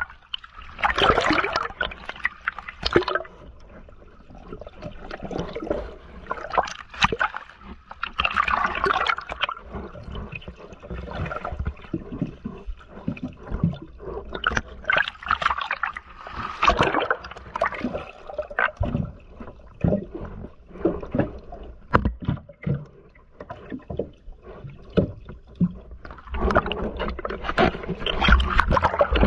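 A scuba diver breathing underwater through a regulator: loud gurgling bursts of exhaled bubbles every several seconds, with quieter stretches between breaths.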